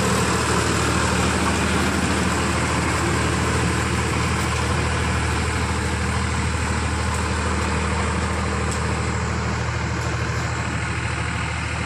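Powertrac Euro 45 tractor's diesel engine running steadily as the tractor tills soil with a rear-mounted rotavator, the tiller churning under the engine's steady drone.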